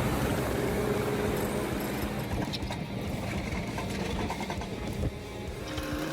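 The engine of a compact earthmoving machine runs steadily. From about two seconds in, rattling and knocking from the machine working join it.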